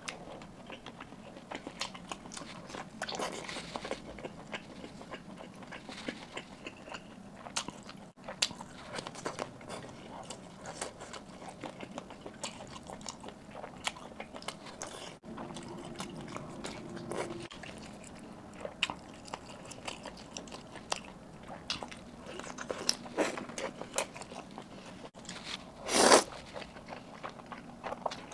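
Close-up eating sounds: a person biting into and chewing juicy grilled sausages, with many short clicks of chewing. Near the end comes one louder slurp as crab roe pasta noodles are sucked in.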